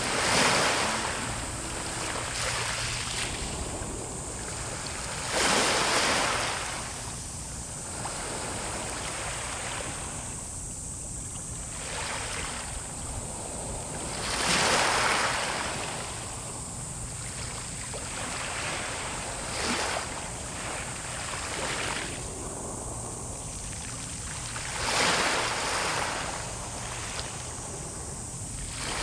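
Sea surf: waves breaking on the shore about five times, several seconds apart, each a rising then fading rush of noise over a constant wash of water.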